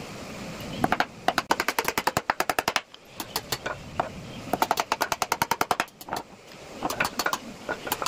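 Hammer tapping nails into the wooden seat of a stool, in three quick runs of sharp taps of about eight a second.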